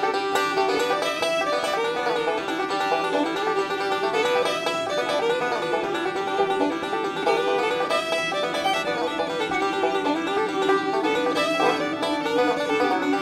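Instrumental intro music led by a picked banjo, in a bluegrass style.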